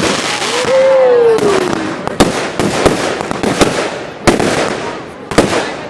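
Fireworks and firecrackers going off all around: a steady crackle broken by a string of sharp bangs, with one short falling whistle about half a second in.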